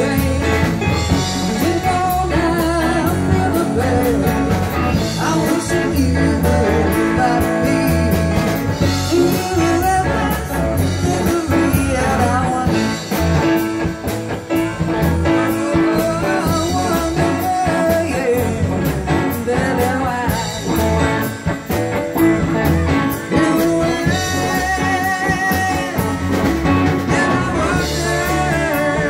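Live band music: a woman singing over a Roland RD-300GX stage piano and an electric guitar, in a blues-rock style.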